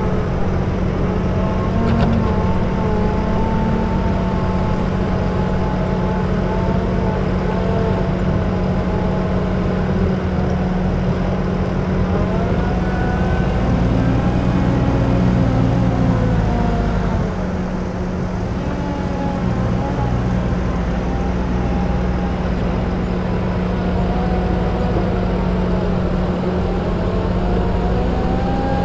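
Claas Scorpion 756 VariPower telehandler's diesel engine working under load, with a whine that rises and falls in pitch as it drives and works the boom to scoop and lift a grab of manure. The engine eases off slightly a little over halfway through.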